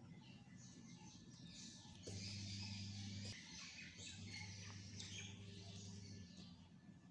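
Birds chirping and twittering, many short high calls. A low steady hum comes and goes beneath them.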